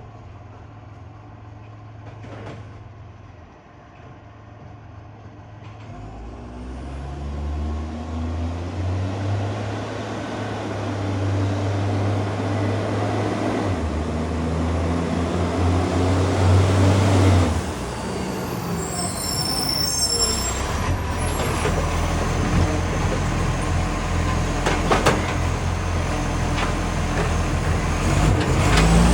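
A garbage truck's engine pulls away and gets louder, its note stepping up and down several times as it works through the gears. The truck has an exhaust leak.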